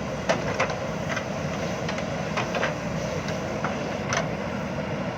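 JCB backhoe loader's diesel engine running steadily, with irregular short metallic clanks and knocks over it, about a dozen in five seconds.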